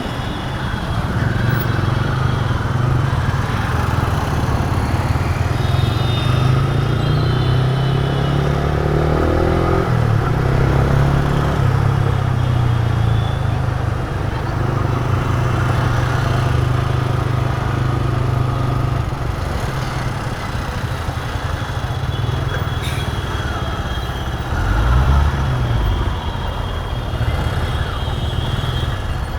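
Motorcycle engine running steadily while riding, with road and wind noise. The engine note shifts up and down, and it swells briefly near the end.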